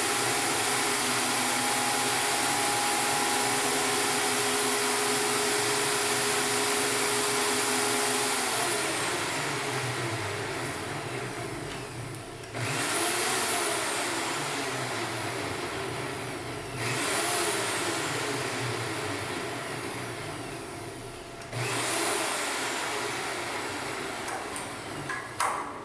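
Eastwood Elite 60 plasma cutter cutting Hardox 450 steel on a CNC table: a loud, steady hiss with a steady hum under it for about eight seconds. The hiss then dies away slowly and starts up suddenly three more times, about every four to five seconds, each time fading again.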